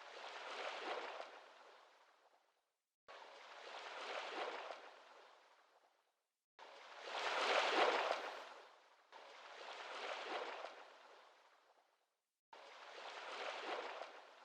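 Water rushing and washing along a sailboat's hull in surges, each starting suddenly, swelling and then fading, about every three seconds, with dead silence between them.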